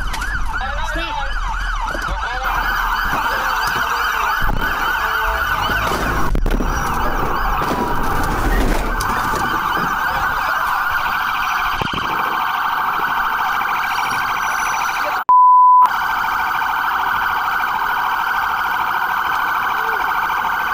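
Police car sirens yelping in a rapid rising-and-falling warble, with more than one siren sounding together. About fifteen seconds in, a loud steady bleep tone replaces all other sound for half a second.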